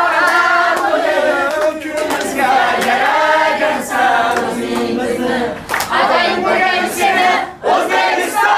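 A group of people singing an Uzbek song together, many voices at once.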